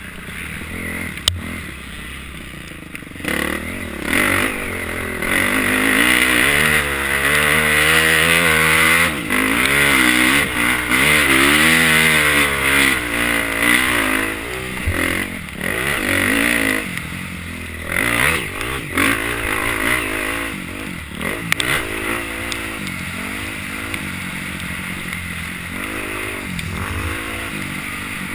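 Motocross bike engine revving hard, its pitch climbing and dropping again and again as the throttle is worked around the track, heard from a helmet camera. Near the end it settles to a lower, steadier run.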